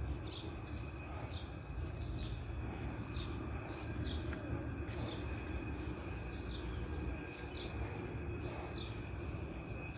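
Outdoor garden ambience: birds chirping briefly about once a second, high-pitched, over a steady low background rumble.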